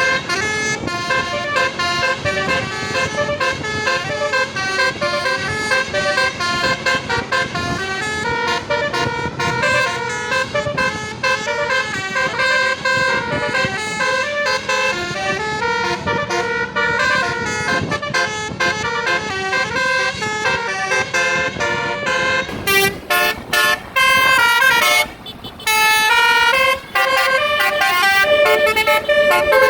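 Telolet basuri musical bus horns playing a fast melody of stepped notes. About 23 seconds in, the horns go louder and higher, in blasts broken by short gaps.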